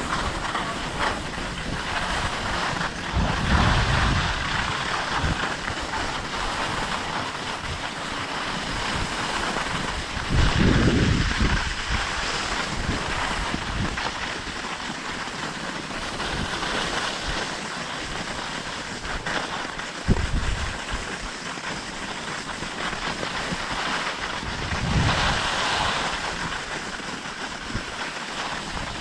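Wind rushing over the microphone of a skier on the move: a steady hiss with heavy low buffets three times, and a single sharp knock about two-thirds of the way through.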